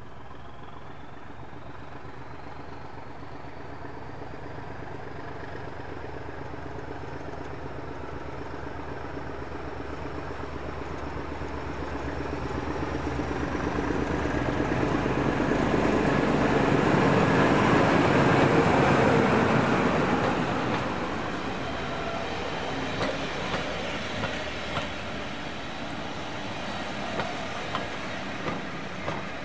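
Heritage diesel locomotive hauling a train past, its engine growing steadily louder to a peak about two-thirds of the way through, then dropping away. Near the end the coach wheels click over the rail joints in quick pairs.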